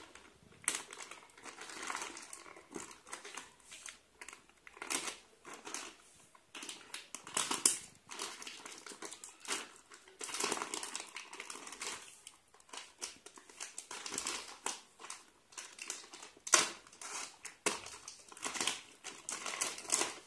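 Plastic courier mailer bag being torn open and handled: irregular crinkling and crackling of the plastic, with sharper tearing bursts, the loudest about eight seconds in and again about sixteen seconds in.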